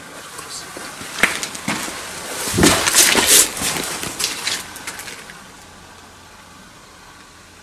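Footsteps crunching and scraping on grit and debris over concrete floor and steps, with the loudest scuffing about three seconds in; the steps stop about five seconds in.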